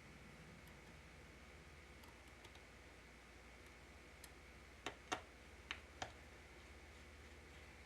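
Near silence over a faint steady hum, broken by four small sharp clicks in quick succession about five to six seconds in, with a few fainter ticks around them: small tools and tiny parts being handled during a laptop repair.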